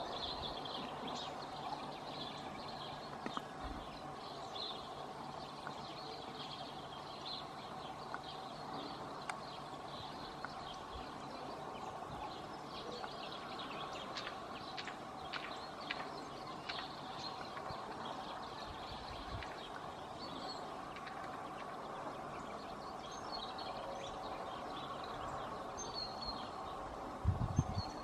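Small songbirds chirping and calling in short, scattered notes over a steady low hum. A brief low thump comes near the end.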